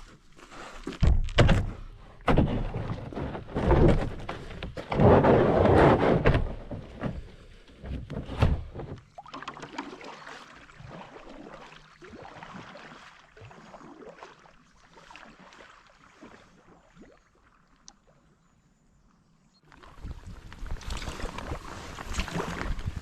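Hollow thunks and knocks of a kayak and paddle being handled, several loud ones in the first few seconds. Then a quieter stretch, and a steady rushing, splashing sound starts near the end.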